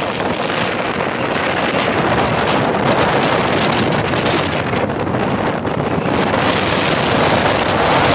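Wind rushing steadily over the microphone of a camera on a moving two-wheeler, hiding any engine sound.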